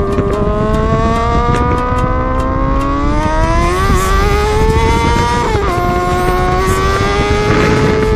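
BMW G 310 R single-cylinder engine accelerating hard at road speed, its pitch rising steadily. About five and a half seconds in it drops as the rider shifts from fifth to sixth gear, then climbs again, over steady wind and road rush.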